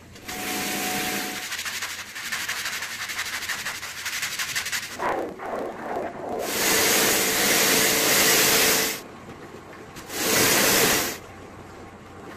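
Wet rug cleaning: rough brush scrubbing on a soaked, foamy rug, then two loud bursts of hiss from a hose-fed cleaning wand working the rug, the first about two and a half seconds long, the second about a second.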